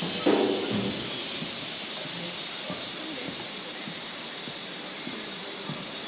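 A chorus of cicadas making a steady, high-pitched drone that holds one pitch without a break.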